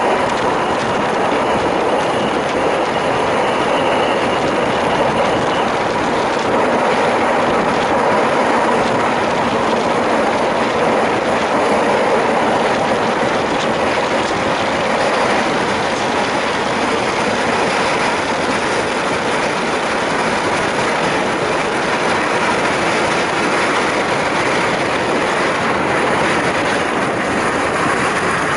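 Zillertalbahn diesel railcar running along the narrow-gauge track, heard from on board: a steady, unbroken rush of wheel and rail noise, with a faint high whine in the first few seconds.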